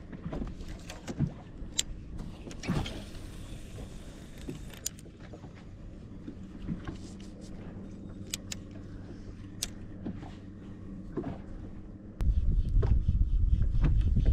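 A steady low mechanical hum with scattered light clicks and knocks. About twelve seconds in, a much louder low rumble comes in suddenly and carries on.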